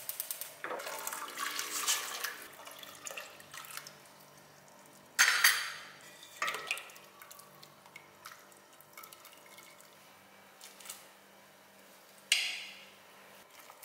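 Liquid in a stainless steel pot splashing and stirring, with a sudden loud hissing splash about five seconds in and another near the end as chopped winter melon is tipped into the pot.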